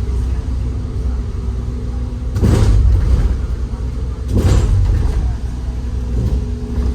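A bus's engine hums steadily inside the passenger cabin. It is broken twice, about two and a half and four and a half seconds in, by a short, loud rushing noise.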